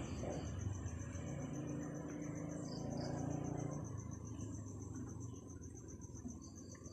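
Low engine hum of a vehicle, fading away about four seconds in, under a steady, pulsing high insect trill.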